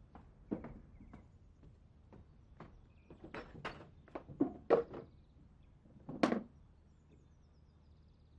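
Footsteps on concrete steps mixed with knocks and thunks from a plastic crate and bucket being carried and set down, the loudest thunk about six seconds in.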